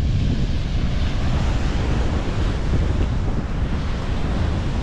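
Wind buffeting the camera microphone: a steady rushing noise with an irregular low rumble.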